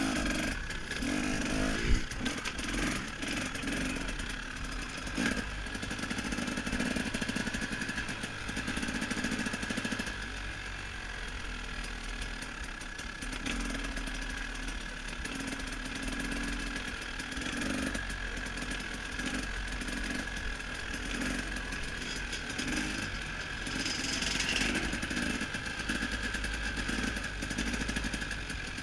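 KTM 300 XC-W's two-stroke single-cylinder dirt bike engine running, its lower note swelling and fading unevenly.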